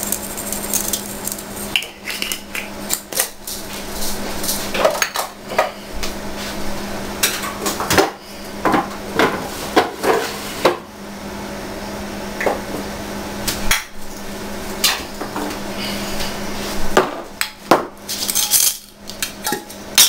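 Irregular clinks, knocks and clatter of glass spice jars and containers being handled, opened and set down on a kitchen counter, over a steady low hum.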